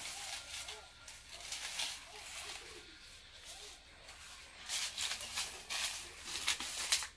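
Dry cane stalks rustling and crackling as they are handled, then louder crunching footsteps over a pile of dry stalks in the second half.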